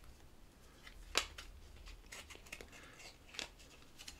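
Stiff cardboard baseball trading cards being handled and flipped one over another: soft sliding swishes and flicks, with a sharper snap about a second in and another a little after three seconds.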